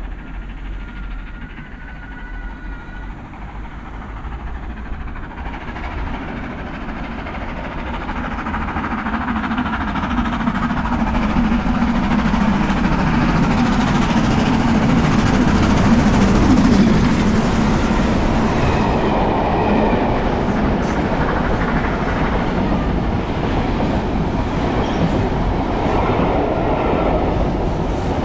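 LMS Black Five 4-6-0 steam locomotive 45231 approaching at speed and running through, growing steadily louder to a peak about two-thirds of the way through. Its coaches then rattle past, with the wheels clicking over rail joints.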